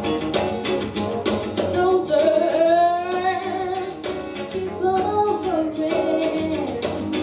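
A female vocalist singing a song over instrumental accompaniment with a steady beat, holding long notes that bend in pitch.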